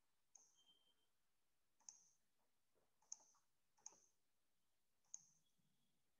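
Near silence broken by five faint, sharp clicks at uneven spacing, from a computer mouse being clicked.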